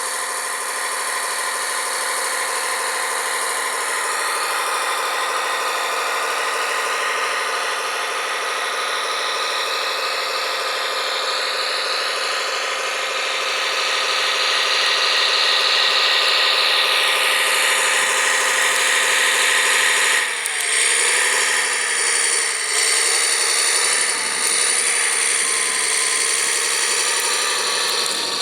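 Electric motors and gearboxes of radio-controlled model construction machines whining steadily, their pitch wavering as the machines work. About twenty seconds in the sound dips briefly and changes to a different set of wavering whines.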